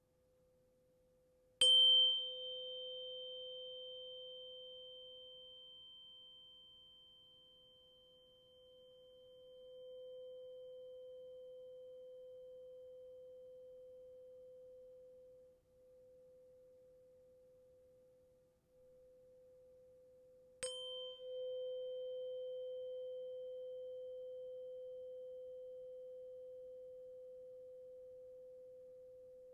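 A 512 Hz tuning fork is struck twice, about 19 seconds apart. Each strike gives a sharp metallic tick and a bright high ring that fades within several seconds. Its steady pure hum rings on between the strikes, slowly swelling and fading.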